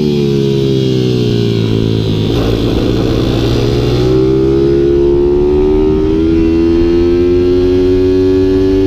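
Supermoto pit bike's small single-cylinder engine running hard on track from the rider's own bike: the revs ease down for about two seconds, go rough and unsettled for a moment, then climb steadily under throttle.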